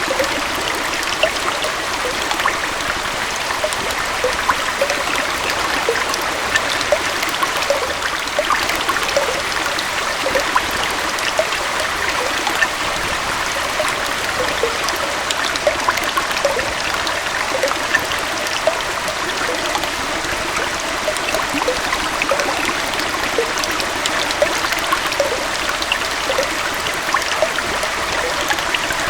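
A small waterfall and stream flowing steadily, a continuous rush of water with many small splashes and trickles over it.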